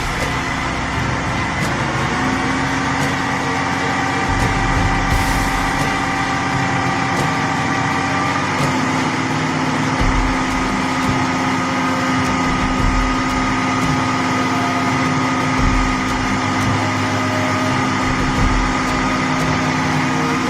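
Truck engine running at fairly steady revs, its pitch shifting a little a couple of times.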